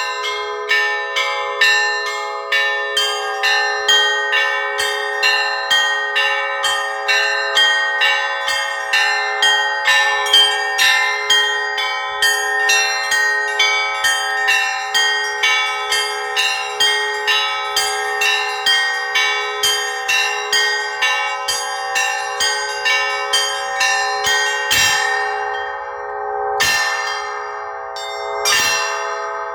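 Russian Orthodox church bells rung in a peal: several bells struck in a quick, steady rhythm of two or three strikes a second, their tones overlapping. About 25 seconds in, the quick ringing stops and three single strikes follow, each left to ring out.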